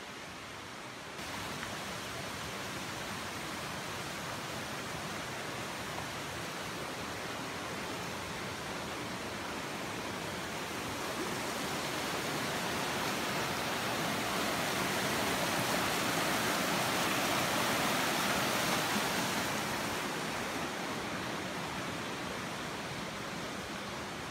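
Steady rush of running stream water, swelling louder through the middle and easing off near the end.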